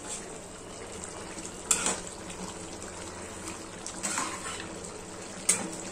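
Pumpkin fish curry simmering in a pan, with a spatula stirring through it and knocking against the pan twice.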